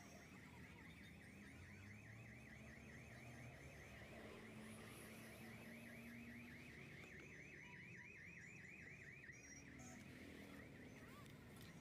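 Faint electronic alarm warbling rapidly up and down, about five times a second, like a car alarm; it fades out about nine seconds in.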